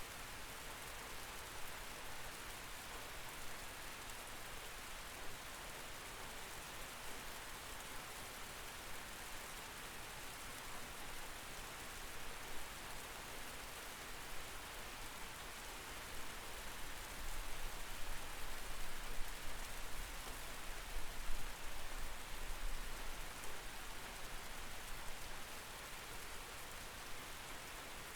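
Steady rain heard through a window: an even hiss of falling rain with scattered drops. A low rumble swells in the middle and fades again.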